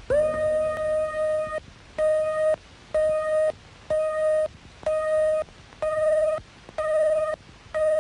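Computer-generated synthesiser tones from a late-1960s soundtrack made with a VC3 synthesiser driven by a PDP-15 computer. One long steady electronic note, then the same note repeated as regular beeps about once a second, the later ones with a slight wobble in pitch.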